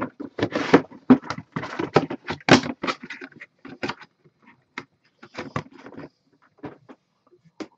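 Packaging being handled: a dense run of crinkles, clicks and knocks for about the first four seconds, thinning to scattered clicks and taps.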